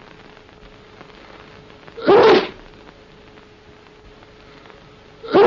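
A person sneezing twice, about three seconds apart, each sneeze a short loud burst, over a faint steady hum.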